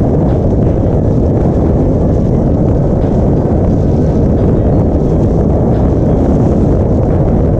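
Honda Click scooter's single-cylinder four-stroke engine, big-bored with a 62 mm kit, running hard under load: a loud, steady roar with rumble and no clear change in pitch.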